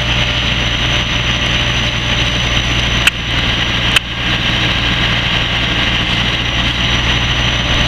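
Steady rushing hiss of a fire hose stream and steam on a burning truck, over the constant low drone of an engine running, the fire engine's pump supplying the line. Two sharp clicks about three and four seconds in.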